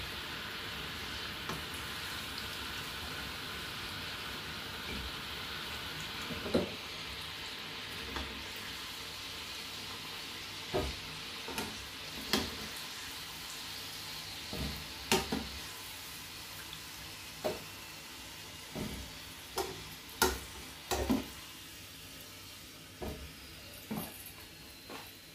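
Yam croquettes deep-frying in a small saucepan of hot oil: a steady sizzle that slowly dies down. Over it come about a dozen sharp clicks of metal tongs against the pan and plate as the croquettes are lifted out.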